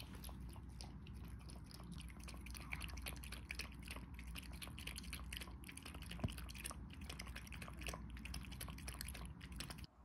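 Pomeranian lapping water from a bowl: quick, wet tongue laps repeating several times a second, cutting off near the end.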